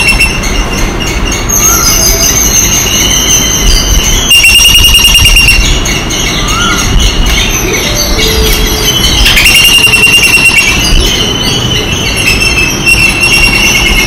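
Loud, high-pitched squealing animal calls, each held for one to two seconds and repeated several times, with a few faint short chirps between them.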